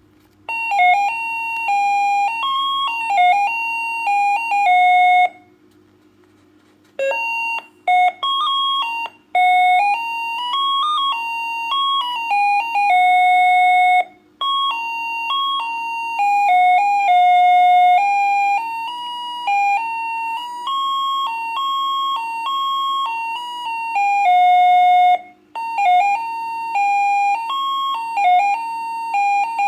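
Maplin electronic doorbell playing its loud monophonic melodies through its small 8-ohm speaker, one simple beeping tune after another with short breaks between them. Its button contact is held closed, so it cycles through its tunes in sequence. A steady low hum runs underneath.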